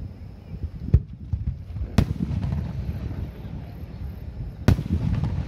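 Aerial fireworks shells bursting overhead: three sharp bangs, about one second in, two seconds in and near the end, the middle one loudest, each trailing off in a low rolling rumble.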